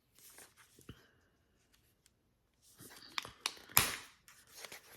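Hard plastic packaging of a Miniverse capsule being handled and pried at: faint rustling, a pause, then a quick run of sharp plastic clicks and cracks, the loudest about four seconds in.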